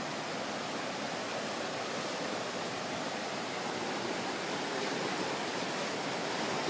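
A creek in flood, swollen well above its usual depth, with fast water rushing in a steady, even roar.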